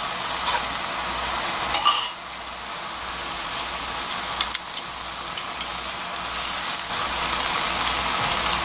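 Sliced pork sizzling in a frying pan as it is stir-fried, a steady frying hiss. A few sharp clacks of wooden utensils against the pan break in, the loudest about two seconds in.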